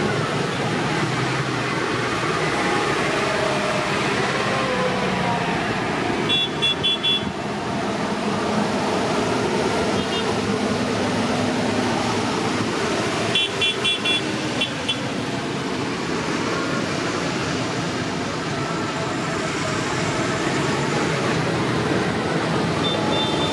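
A procession of large modern farm tractors driving past, their diesel engines running steadily. Horns toot in quick runs of four or five short beeps, about six seconds in, around thirteen to fifteen seconds, and once more near the end.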